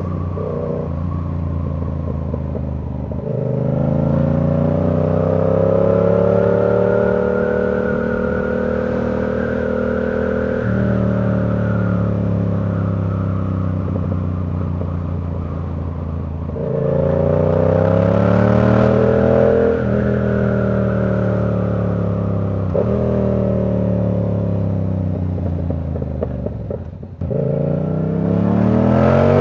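Yamaha R7 parallel-twin engine through a Ko Lightning exhaust, on the move. It pulls up in pitch several times under acceleration, with steadier cruising stretches in between and a brief dip in the engine note near the end before it picks up again.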